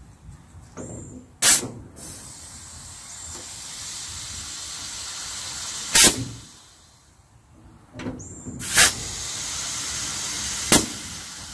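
Compressed air from an air compressor's hose and chuck hissing at a flat trailer tire's valve, with four short, loud blasts of air as the chuck goes on and comes off the valve and a steady hiss between them. The tire is not holding air.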